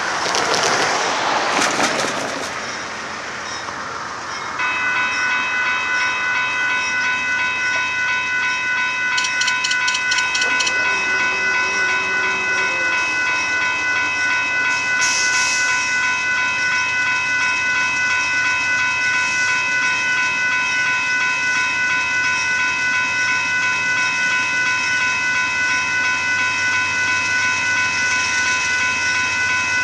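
Railroad crossing warning bell that starts about four seconds in and rings on steadily as the crossing signals activate for an approaching train. Before it starts there is a brief rush of noise.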